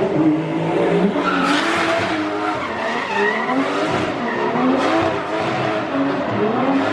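Drift car sliding through a run: its engine revs rise and fall repeatedly as the throttle is worked, over the continuous hiss and squeal of the spinning rear tyres.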